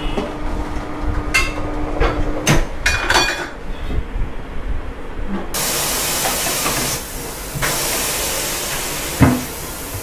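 Metal clanks and knocks of tyre-changing work, then from about five and a half seconds in a loud, steady hiss of air escaping from a car tyre as it is let down, with a short break about seven seconds in. A single sharp knock comes near the end.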